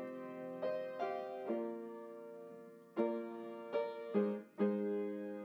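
Slow solo piano music: single notes and chords struck every second or so and left to ring out.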